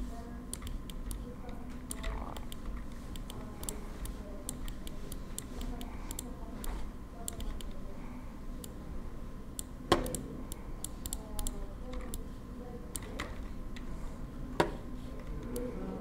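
Scattered clicks of a computer mouse and keyboard, light and irregular, with two louder clicks about ten seconds in and near the end.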